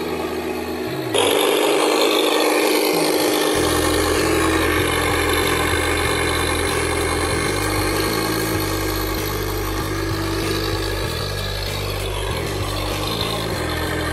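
Onboard add-on sound unit of a Tamiya M1025 Hummer RC truck playing a simulated engine running through its small speaker, mixed with the whine of the truck's electric drive motor and gears rising and falling as it drives. The sound gets louder about a second in.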